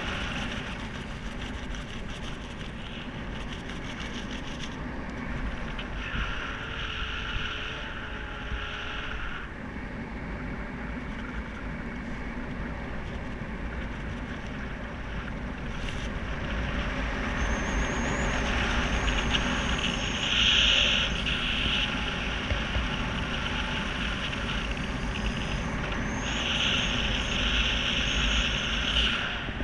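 Steady wind rushing over a skydiver's camera microphone during the descent, with a higher hiss that swells and fades several times.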